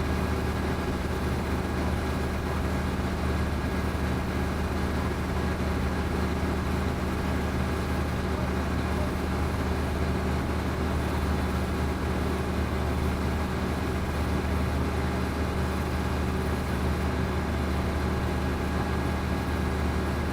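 A vehicle engine running steadily: a constant low drone whose pitch does not change.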